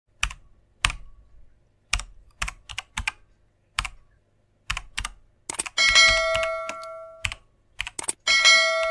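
Intro sound effects: scattered keyboard-typing clicks, singly and in quick clusters, then two bright chimes about two and a half seconds apart, each ringing and fading over about a second and a half.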